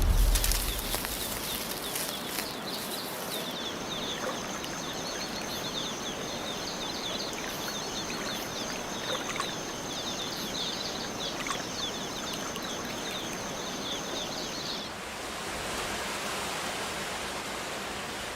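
Rainforest ambience: a steady high insect drone and fast chirping calls over a wash of noise like running water. The drone and chirps stop about fifteen seconds in, leaving a broader, even hiss.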